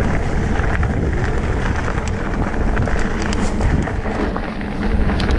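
Wind rushing over the microphone as a Salsa Bucksaw fatbike rolls fast down a dirt trail, its fat tyres rumbling on the ground, with scattered sharp clicks and rattles.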